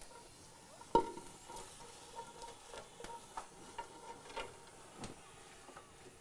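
Boiled greens being tipped from a terracotta bowl into an iron cauldron of boiling broth: a sharp knock about a second in, then scattered light taps and clinks.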